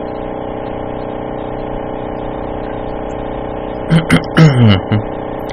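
A steady humming buzz with many even overtones, unchanging in level. About four seconds in, a voice briefly murmurs over it for about a second.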